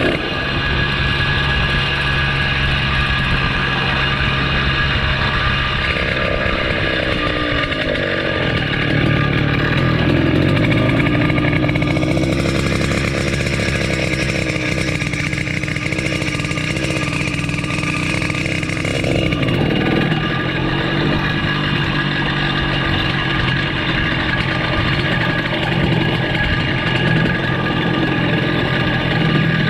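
The small 79cc engine of a motorized bicycle running as the bike rides along. Its pitch is steady at first, then drops and climbs again a quarter of the way in as engine speed changes, with a rushing hiss over the middle stretch, before it settles back to a steady pitch.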